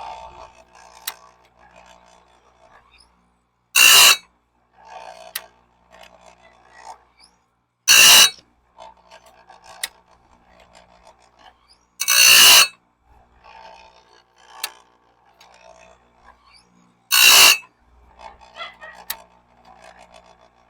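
Electric chainsaw-chain sharpener's grinding wheel brought down onto a sawmill band blade's teeth, one tooth at a time: four short grinding bursts about four seconds apart, with faint clicks and rattles in between.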